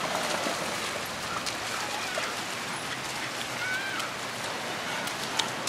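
Steady rush of surf and wind with dogs splashing through shallow seawater, and a few faint, short high-pitched calls.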